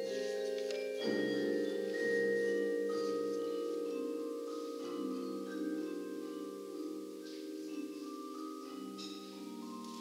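Percussion ensemble playing marimbas and vibraphones: struck mallet notes ringing over held low chords, growing slowly softer through the second half.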